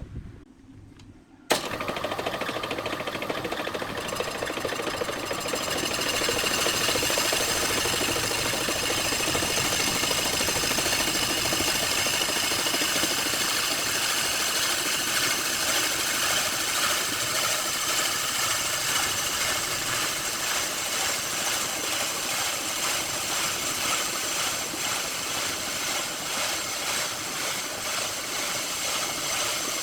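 A woodworking machine starts abruptly about a second and a half in and runs steadily with a loud, even hissing noise.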